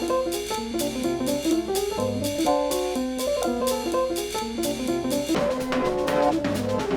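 Background music: an instrumental track with shifting keyboard-like notes over a steady drum beat.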